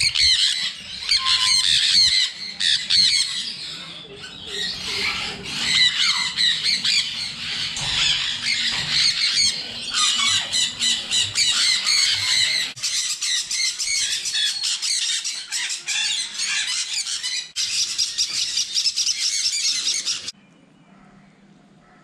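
A flock of sun conures squawking, many harsh calls overlapping without pause, until they cut off suddenly near the end.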